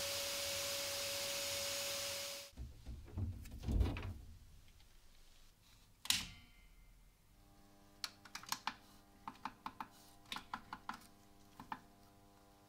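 Sandblasting nozzle hissing steadily against a steel hammer head, cutting off after about two and a half seconds. Then a few dull knocks, a sharp click as the hardening furnace's power switch is pressed, and a faint electrical hum from the furnace. Near the end comes a run of about a dozen quick clicks as the buttons of its REX-C100 digital temperature controller are pressed to set it.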